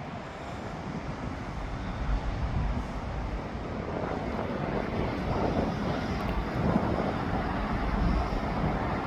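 Low, steady rumble of heavy vehicles, slowly growing louder, with wind buffeting the microphone.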